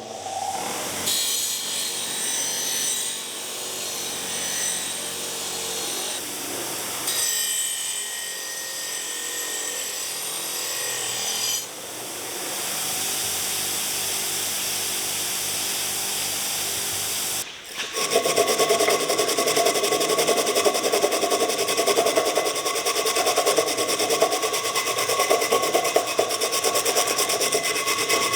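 Power wire wheel scrubbing rust off a steel pruning chisel, a steady motor whine under a harsh scratching hiss. The sound jumps abruptly several times, and for the last ten seconds it is louder with a fast, even chatter.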